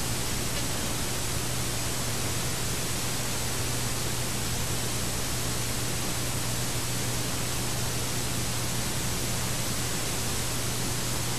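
Steady hiss with a low hum underneath, from a VCR playing back an unrecorded stretch of videotape.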